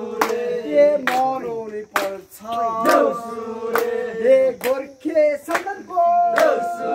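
A group of voices singing a Nepali Deusi festival song, with a sharp beat about once a second.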